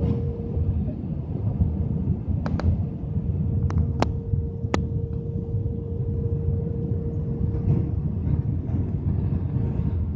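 Jet airliner cabin noise during landing: a steady engine rumble with a constant hum, broken by a few sharp clicks about two and a half to five seconds in.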